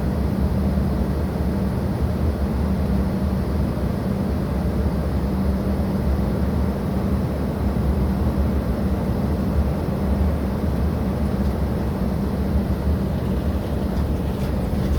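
Steady low rumble of jet aircraft noise, with gusty wind on the microphone.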